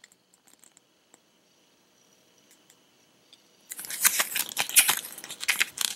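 Near silence, then about two-thirds of the way in a small paper instruction booklet rustling and crackling as it is handled, its pages flipped and the booklet closed.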